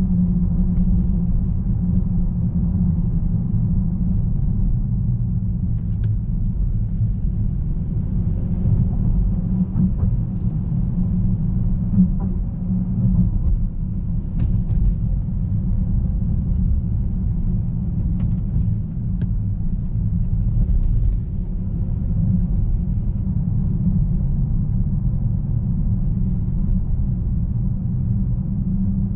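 In-cabin sound of a 2019 Bentley Continental GT cruising at a steady pace: a low, even rumble of engine and road, with a few faint ticks.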